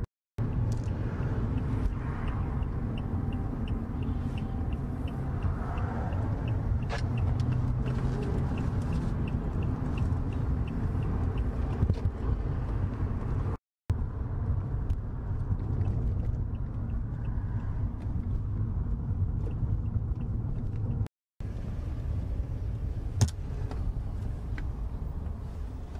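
Steady road and engine rumble inside a moving car's cabin. Over the first several seconds a turn signal ticks steadily, about three clicks a second. There is one sharp click near the end, and the sound drops out briefly twice.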